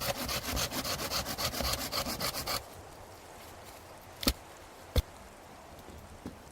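Hand saw cutting through wood in quick, even strokes, stopping a little over two seconds in. Two sharp knocks follow about a second and a half later, about a second apart.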